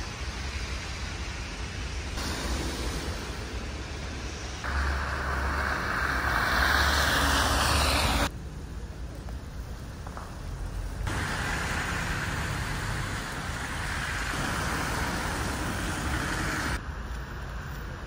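Street traffic: cars passing with a steady tyre hiss, loudest as a vehicle goes by close about five to eight seconds in. The sound changes abruptly several times where short shots are cut together.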